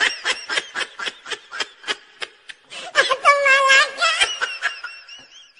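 High-pitched laughter: a rapid string of short giggles, then a longer wavering laugh about three seconds in that trails off near the end.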